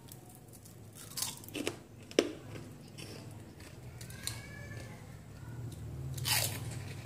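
Crisp fried prawn crackers crunching as they are bitten and chewed: a few sharp snaps in the first couple of seconds and another near the end.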